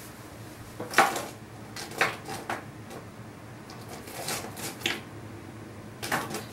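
Light clicks and clinks of small hard objects being picked up and set down on a work desk, about six in all, the loudest about a second in.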